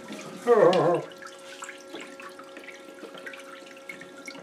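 Small battery-powered pump in a cooler parts washer humming steadily as cleaning fluid trickles and splashes, with occasional light clicks of metal parts being handled. A short voiced sound from a man about half a second in.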